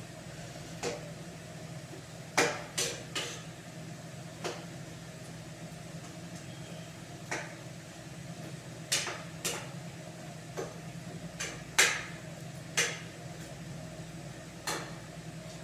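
Irregular sharp knocks and clinks of kitchenware being handled while cooking, about a dozen scattered through, over a steady low hum.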